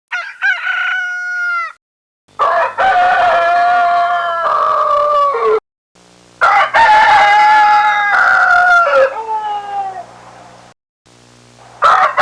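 Rooster crowing: a short crow, then two long crows that each hold and drop in pitch at the end. A fourth crow begins near the end.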